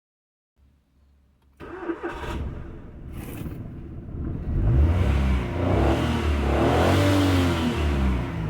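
Maruti Alto K10's three-cylinder petrol engine starting about a second and a half in, then revved, its pitch rising and falling. The sound cuts off suddenly at the end.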